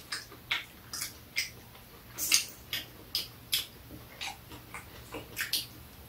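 Close-up eating sounds: soft chewing and mouth smacks, mixed with light clicks of chopsticks and a spoon against dishes, about two short sounds a second.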